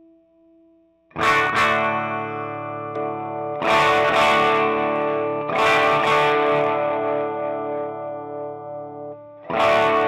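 Electric guitar played through a home-built Tube Screamer-style overdrive pedal into a Marshall Vintage Modern amp. The pedal is set with the gain low and the level cranked, the way many players use it to tighten their sound. A few overdriven chords are struck and left to ring, starting about a second in, with a brief break near the end.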